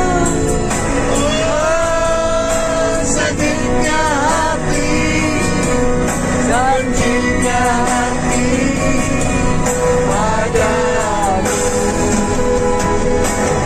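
A voice singing a melodic song over backing music.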